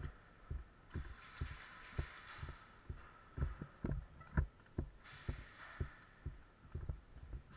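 Footsteps and low thuds of a body-worn camera as the wearer walks, about two a second, with a few sharper knocks near the middle. Two short stretches of hissing rustle, about a second in and about five seconds in.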